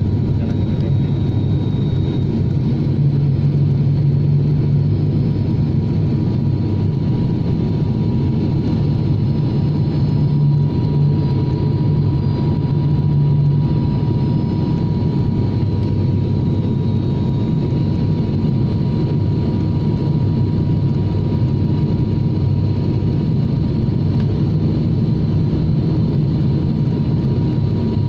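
Cabin noise of an ATR 72 turboprop airliner on its approach descent: a steady low engine and propeller drone with a thin, constant whine above it, heard from a window seat next to the engine.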